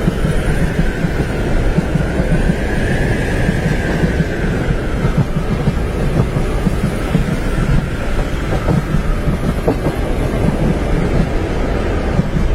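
Train running along the rails, heard from inside a passenger compartment: a steady low rumble of wheels and carriage, with a faint whine that rises and falls during the first few seconds.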